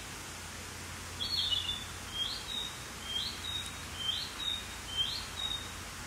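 Male narcissus flycatcher singing: a phrase beginning about a second in, then four repeated two-part notes about one a second, each a quick upward sweep followed by a short level whistle, over a steady hiss.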